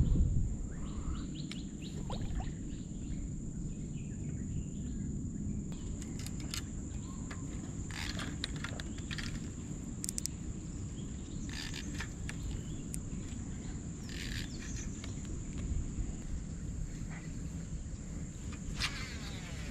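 Steady high insect drone over a low wind rumble on the microphone, with a few brief chirps and clicks scattered through.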